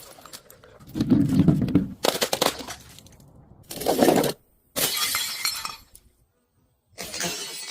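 Glass being broken and crushed: about five separate bursts of crunching and shattering, each cutting off abruptly, with short silences between them.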